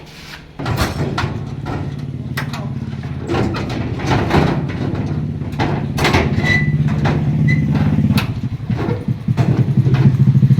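Engine of a corn sheller machine starting abruptly about half a second in and running steadily, with short knocks and clatter over it; near the end it runs louder with a fast pulsing beat.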